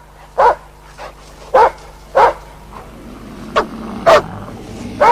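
Hunting dog barking at a bear held at bay, a loud string of about five separate barks half a second to a second apart.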